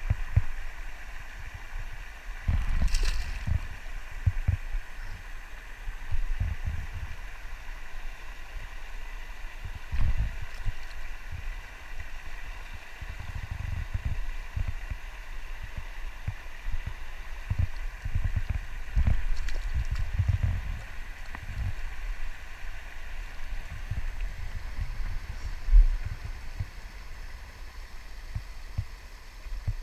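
Steady rush of river water spilling over a low concrete weir, with irregular low thumps and a few clicks from handling close to the microphone.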